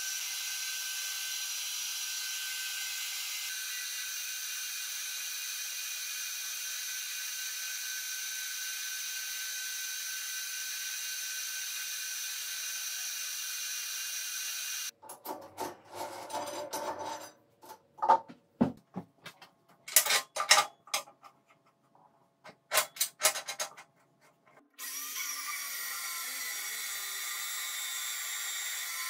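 Metal lathe running steadily while turning a long steel bar, with a follower rest on the carriage: an even machine sound with several fixed high tones. About halfway through this gives way to a string of irregular sharp metallic knocks and clanks. Near the end a steady machine sound starts again, and a metal-cutting band saw is in view.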